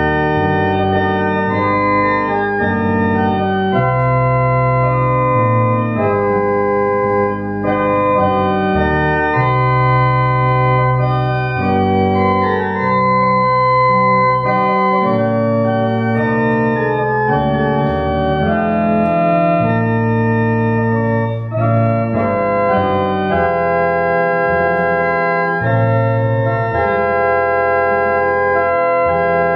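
Church organ playing a hymn: held chords that change every second or two over a deep bass line.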